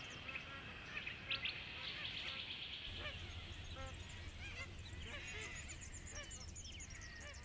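A flock of magpie geese honking, many short calls overlapping, with high chirps of other birds above them.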